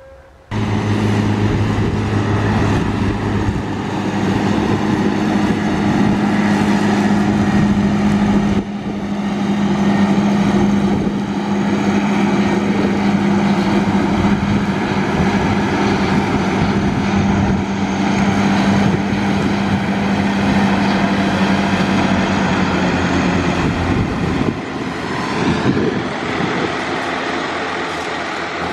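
Belarus tractor diesel engines running steadily under working load in the field, first a large tractor with front and rear disc mowers cutting grass, with a steady engine hum. The sound shifts abruptly twice, ending on a smaller tractor towing a wheel rake.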